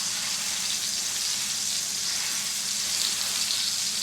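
Boneless chicken pieces frying in a pan, a steady sizzle.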